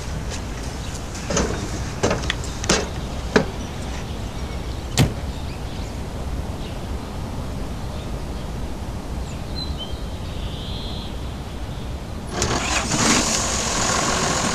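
A few sharp knocks and clicks over a steady low rumble, then about twelve seconds in a John Deere farm tractor's diesel engine comes up loud and keeps running as the tractor works the field.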